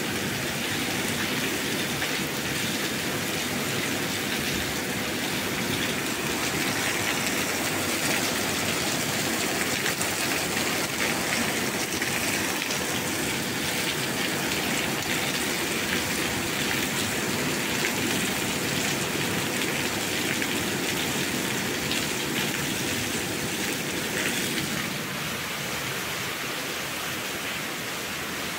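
Steady rain falling, a continuous even hiss with no separate drops standing out; it thins and drops a little in level near the end.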